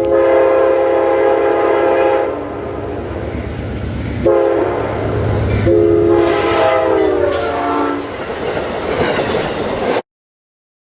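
Locomotive multi-chime air horn sounding a chord in two long blasts over the rumble of a passing train, the chord dropping in pitch during the second blast as the train goes by. The sound cuts off suddenly near the end.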